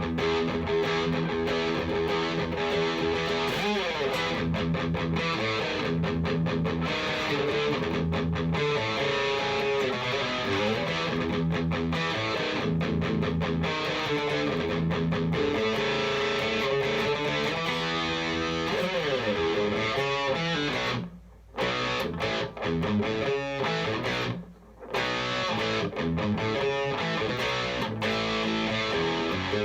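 Harley Benton SC-550 Deluxe II electric guitar played through an amplifier: continuous chords and single-note lines with some slides, briefly stopping twice about two-thirds of the way through.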